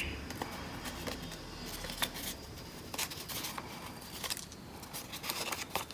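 Glued black paper being wrapped and pressed around a cardboard toilet paper roll by hand: faint rustling of paper and card with a few small clicks and taps.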